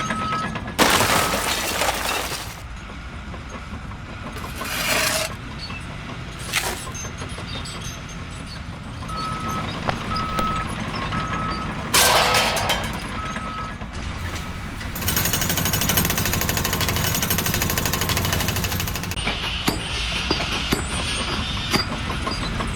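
Heavy construction machinery running, with a reversing beeper giving a steady series of beeps for several seconds midway. Loud hissing bursts come near the start and about halfway through, and the machine noise grows louder and denser later on.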